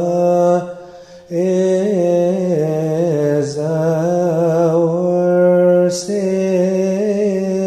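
A solo man chanting a Coptic hymn unaccompanied, holding long vowels with wavering, ornamented pitch. He breaks off for a breath about a second in and takes quick breaths twice more.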